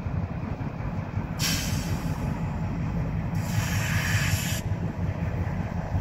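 Diesel switcher locomotive running with a steady low rumble, with two bursts of hiss, each about a second long, at about one and a half and three and a half seconds in.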